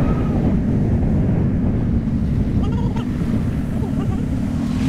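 Motorcycle running steadily while riding, under a heavy rush of wind noise on the microphone.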